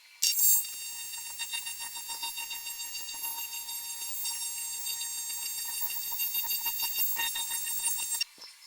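AC TIG welding arc on 6061 aluminum, the welder set to 125 Hz: it strikes with a sharp burst about a quarter second in, then runs as a steady, high-pitched buzz for about eight seconds and cuts off suddenly shortly before the end.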